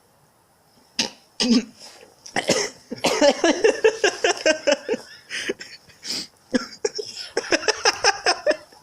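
A person coughing about a second in, then laughing hard in a long fit of rapid bursts.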